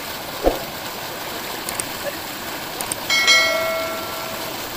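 Steady rush of water pouring from a tubewell pipe into a tank. A thump comes about half a second in, and about three seconds in a click is followed by a ringing bell chime that fades out: the subscribe-button sound effect.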